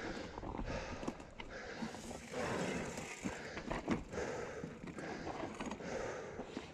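Heavy breathing of a mountain biker lying winded on the ground after going over the handlebars, a noisy breath about every second, with scrapes and clicks of the body-mounted camera against gravel.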